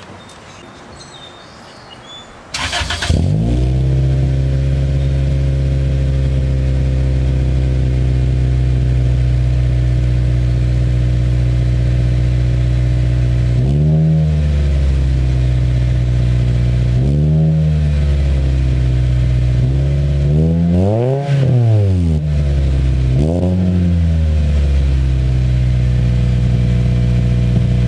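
Toyota Celica GT-S's 2ZZ-GE four-cylinder engine starts about two and a half seconds in and idles through a Skunk2 muffler that is leaking at its broken welds. The throttle is blipped four times, and the third rev goes highest.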